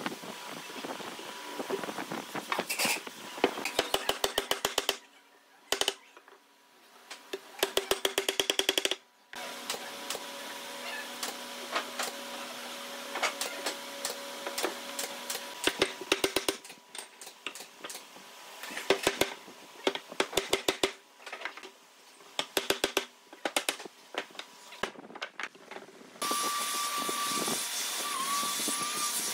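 Runs of rapid, sharp knocks and taps during wooden chair frame assembly, broken by short quiet gaps. A steady hum with a high whine takes over for the last few seconds.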